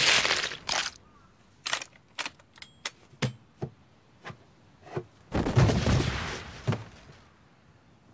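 Animated-film fight sound effects: a loud crash, then a scattering of separate sharp knocks and clatters, then a second, heavier crash with a low rumble about five seconds in, ending in one last knock.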